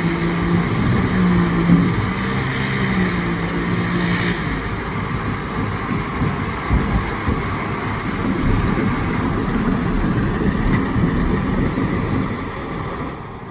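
Truck-mounted concrete pump running while pumping concrete: a steady engine hum that gives way about four seconds in to a rougher low rumble, easing off near the end.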